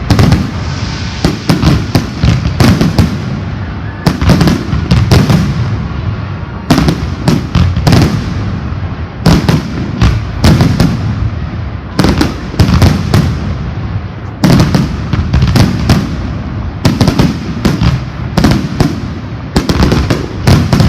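Aerial fireworks display: volley after volley of loud bangs, clustered every second or two, their echoes running into one another.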